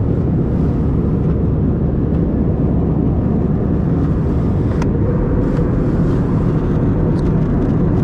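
Loud, steady low rumble of a jet airliner's cabin: engine and airflow noise, with a faint click about five seconds in.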